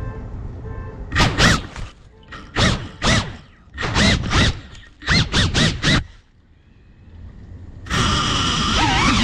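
FPV quadcopter's motors and propellers buzzing, heard from the onboard camera, in repeated short throttle bursts whose pitch rises and falls. The throttle eases off for a moment around six seconds in, then comes back on in one long burst near the end.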